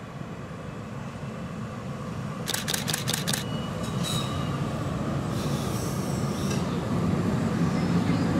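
Heritage electric tram, HTM PCC car 1024, rolling up and passing, its low rumble growing steadily louder. A quick run of clicks from the wheels comes about two and a half seconds in, then brief high wheel squeals.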